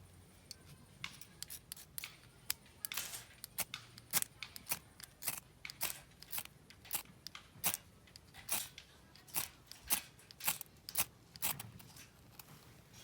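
A run of sharp clicks or snips, about two a second.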